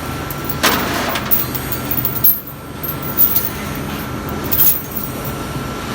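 Heavy machinery running steadily with a thin, steady whine, broken by several sharp clanks.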